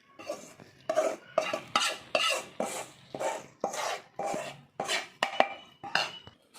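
A utensil scraping roasted grated coconut out of a pan in short repeated strokes, about two a second.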